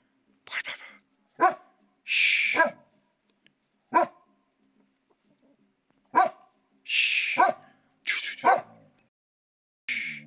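A dog barking: about eight separate single barks, with a pause of about two seconds in the middle.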